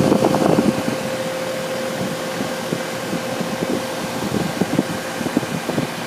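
2009 York Latitude heat pump outdoor unit running in heat mode: its A.O. Smith fan motor spins the top condenser fan with a steady rush of air and a steady hum.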